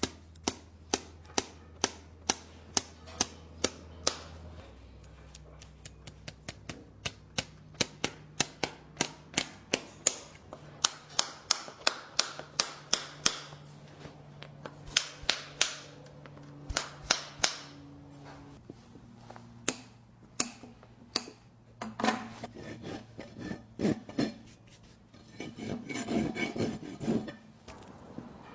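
Farrier's hammer striking repeatedly during hoof work, sharp taps about two a second in runs with short pauses, then a stretch of rasping on the hoof near the end.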